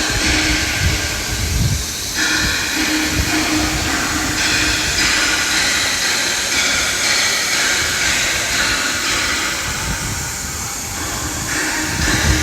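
Steady factory-floor machinery noise: a continuous hiss with a constant hum and an uneven low rumble underneath.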